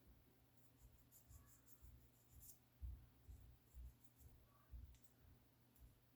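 Faint, irregular light scratching and clicks of fine sandpaper wrapped around a stick, rubbed by hand over a pistol front sight to smooth its fit.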